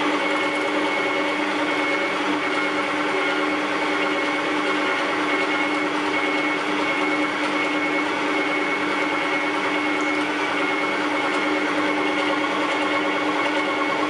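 Electric meat grinder running steadily while grinding meat: a steady motor hum with a high whine over it, as the minced meat is pushed out through the grinder plate.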